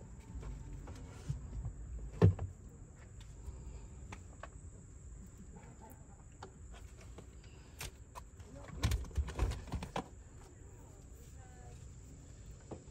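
Handling noises from hiking gear being put on: scattered clicks and light rustling, with a loud knock about two seconds in and a run of knocks and clatters around nine seconds.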